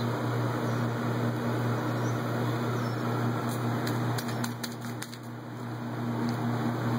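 Steady low mechanical hum over a constant rushing noise, with a few faint clicks about halfway through.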